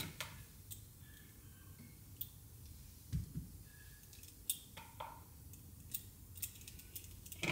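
Faint scattered clicks and light scrapes of a peeler trimming the edges of a fresh, soft soap bar.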